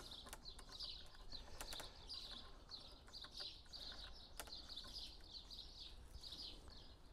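A small bird chirping over and over, faint, about two or three short chirps a second, with a few soft clicks from a screwdriver turning a pedal screw.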